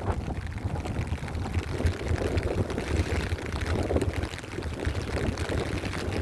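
Wind buffeting the microphone in a steady low rumble, over rain falling on an umbrella.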